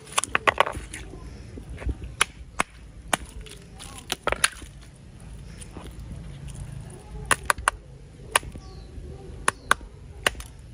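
Sharp cracks and clicks of a block of ice being broken apart by hand, pieces snapping off and dropping onto wet stone, at irregular intervals with a cluster of cracks near the start and another near the end.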